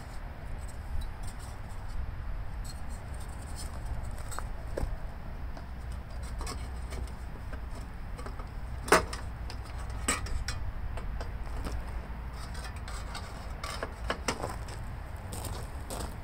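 Scattered clicks and knocks of an engine cover being handled and fitted onto a lawn mower engine, with one sharper knock about nine seconds in, over a steady low rumble.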